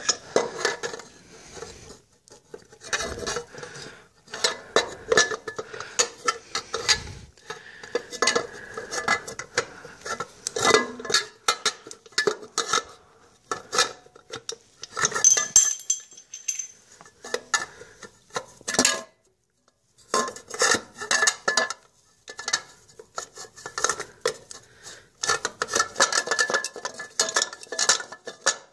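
Steel power steering reservoir can on a tractor pump being handled and worked into place: irregular metal clinks, knocks and clatter, some with a brief metallic ring.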